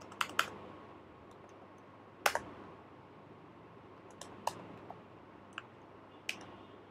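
Computer keyboard keystrokes: about eight sharp, irregularly spaced key clicks as a word is typed slowly, the loudest about two seconds in.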